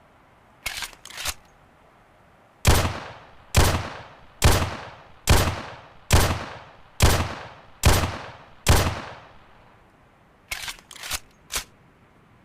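An 11.4 mm (.45-calibre) pistol firing eight single shots at an even pace of just under one a second, each crack trailing off in an echo. Two short clicks come before the shots, and three more come near the end.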